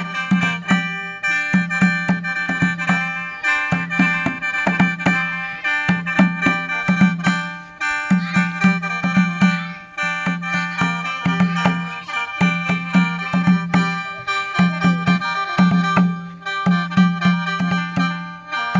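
Khaen, the Isan/Lao bamboo free-reed mouth organ, played in a lively rhythmic style. Held reedy high notes sound over a pulsing low note, with percussion strikes keeping the beat.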